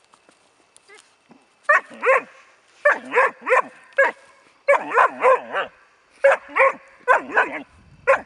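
Four-month-old Bracco Italiano puppy barking: about fifteen high, yelping barks in quick groups of two to four, starting about two seconds in.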